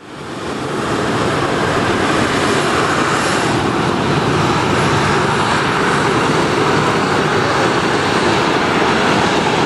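The four CFM56 turbofan engines of an Airbus A340-300 on final approach, heard from the ground as a steady jet rush and rumble. The sound fades in over the first half second.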